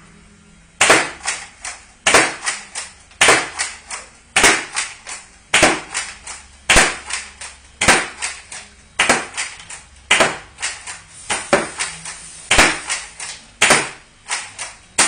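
Nerf LongShot dart blaster, fitted with an Xplorer power upgrade kit, firing stefan darts in steady succession, about one shot a second. Each shot is a sharp snap followed by a few lighter clacks.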